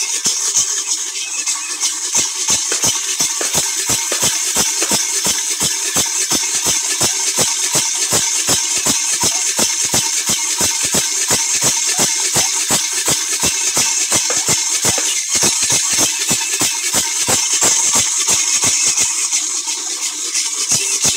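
Background music with a steady fast beat, about four beats a second.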